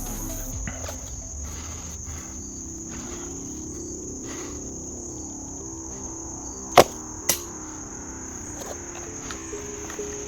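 Crickets chirring steadily. About seven seconds in come two sharp snaps half a second apart, the sound of a pocket shot being shot: the band released, then the arrow landing.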